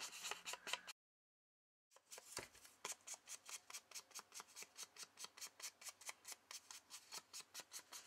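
Faint, quick rubbing strokes of a distress ink pad swiped along cardboard edges, about five strokes a second, with a dead gap of about a second near the start.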